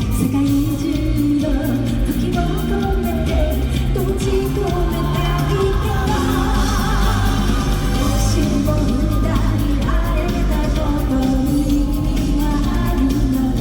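Live pop-rock band playing an anime theme song, with a woman singing the lead melody over drums, bass and keyboards.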